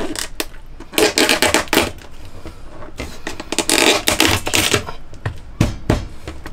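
Kitchen knife cracking and crunching through the shell of a boiled lobster on a plastic cutting board. It comes in two bursts of rapid crackling, with a couple of sharper knocks near the end.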